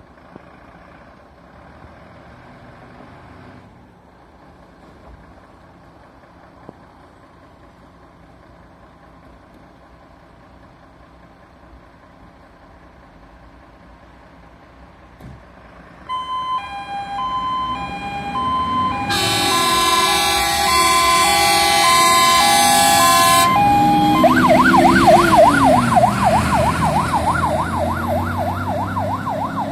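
Fire engine's diesel engine running, then a two-tone hi-lo siren switches on about halfway through. A loud horn blasts for several seconds, and the siren then changes to a fast warbling wail while the engine revs as the truck pulls away on an emergency call.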